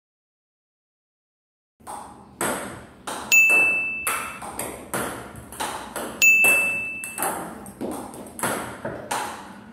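A table tennis ball bouncing over and over, about two bounces a second, each hit ringing off briefly; the bouncing starts after about two seconds of silence. Two of the louder hits, about three seconds apart, carry a short high steady tone.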